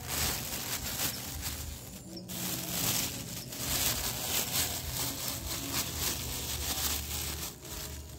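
Thin plastic bags rustling and crinkling as they are handled, with a plastic bottle being slipped into one.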